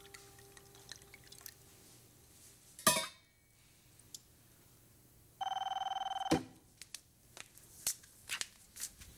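A single sharp knock about three seconds in, then a telephone ringing once, an electronic ring lasting about a second, followed by a few light clicks.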